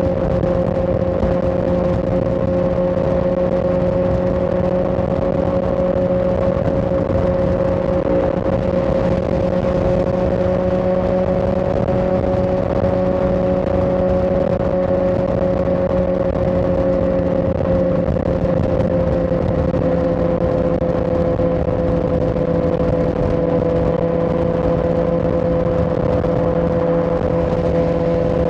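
Suzuki GSX-R1000R's inline-four engine running steadily at a cruising speed, over a constant rush of noise. Its pitch rises slightly about halfway through, then eases back a little.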